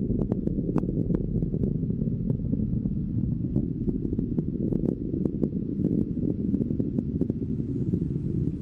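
Rocket engine running in first-stage powered flight: a steady low roar with frequent sharp crackles.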